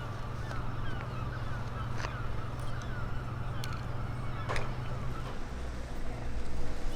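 Gulls calling again and again with short falling cries, over a low steady hum that stops about five seconds in, with a few sharp clicks.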